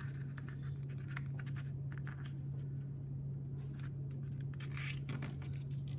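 Sheets of origami paper rustling and scraping in short, irregular strokes as they are folded in half and the creases pressed down by hand, over a steady low hum.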